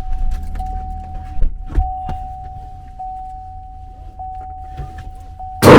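A steady electronic tone held for several seconds, with a slight break about every second, over a low rumble and a few clicks and knocks. Music starts loudly right at the end.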